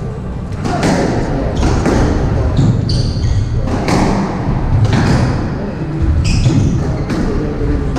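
Squash rally: the ball smacking off rackets and walls about once a second, with short squeaks of court shoes on the wooden floor.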